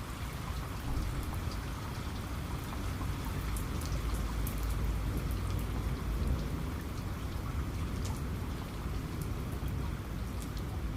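Steady rain falling, with scattered sharp drop impacts and a low rumble that swells in the middle.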